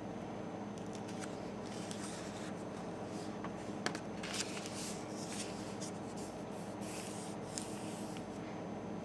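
A sheet of paper being handled and folded on a wooden table. It rustles and slides in short bursts under the hands, with a sharp tick about four seconds in.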